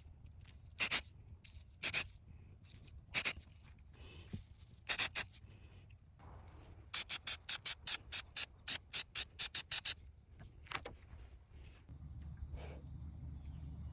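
Aerosol spray paint can sprayed in short hissing bursts: a few single sprays spaced about a second apart, then a quick run of about a dozen short bursts.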